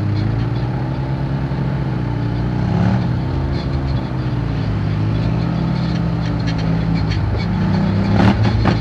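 Quad (ATV) engines running at low speed on a dirt track, pitch rising and falling as the throttle opens and closes. A sharp knock comes about eight seconds in.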